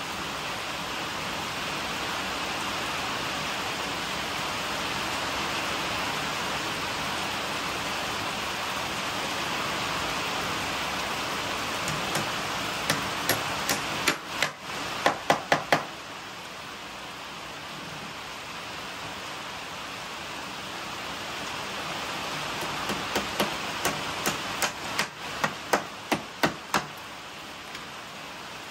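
Hammering: a run of sharp knocks about halfway through, and a second, quicker run of blows near the end. Underneath is a steady, rain-like hiss.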